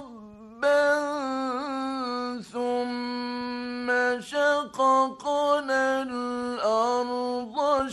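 A male Quran reciter chanting in the melodic mujawwad style: long held notes on a steady pitch, ornamented with quick turns, broken by several short pauses between phrases. The recording is an archival 1960s radio broadcast.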